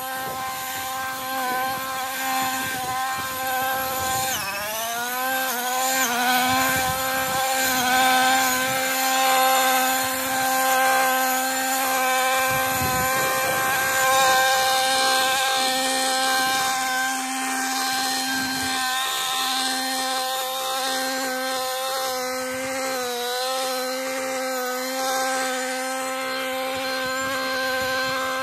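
Husqvarna 128R brushcutter's small two-stroke petrol engine running at high revs while cutting. It revs up sharply about four to six seconds in, then holds a steady high whine that dips slightly now and then as the cutter meets the growth.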